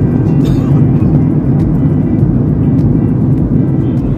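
Steady low roar of a jet airliner's cabin noise in flight, with background music over it.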